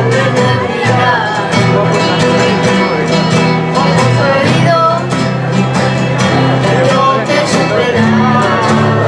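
A live band plays a song, with guitar and bass under a steady beat and a melody line on top.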